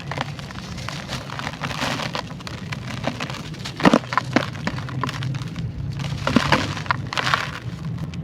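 Crunchy, grainy sand-clay chunks crumbling and breaking: a dense crackle of small cracks, with a few sharper, louder snaps near the middle and again later. A steady low hum lies underneath.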